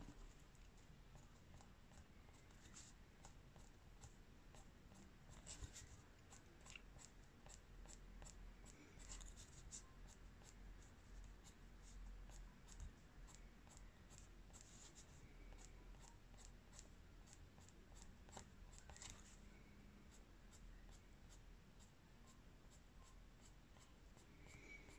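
Faint scratching of a Prismacolor Premier coloured pencil on paper: many quick, short, irregular shading strokes.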